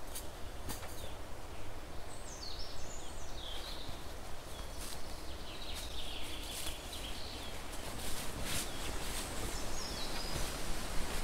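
Songbirds singing several short chirping phrases, with a few crackles of dry leaf litter underfoot and a steady low rumble behind.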